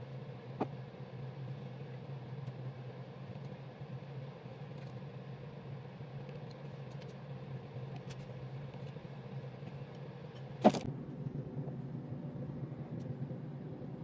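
A steady low hum runs throughout, with a light click under a second in and one sharp knock about ten and a half seconds in.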